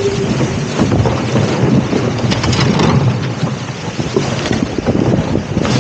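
Wind buffeting the microphone, with water rushing along the hull of a Musto Performance Skiff sailing fast downwind under spinnaker; a loud, gusting rush that swells and dips irregularly.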